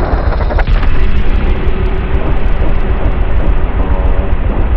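KTM motorcycle riding off slowly in traffic, heard from its own camera: a loud, steady low rumble of engine and wind noise on the microphone.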